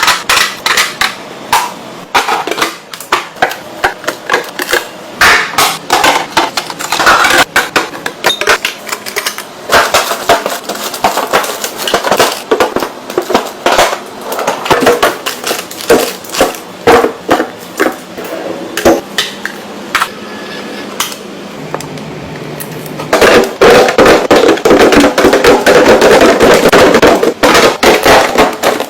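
Containers and dishes clinking and knocking as items are handled and set down, a long run of sharp clicks and clatters. About 23 seconds in it becomes a denser, steady rattling.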